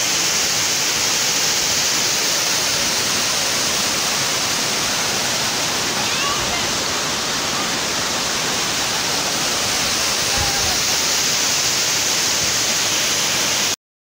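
Waterfall: white water rushing down a rock face in a loud, steady roar of noise that cuts off abruptly near the end.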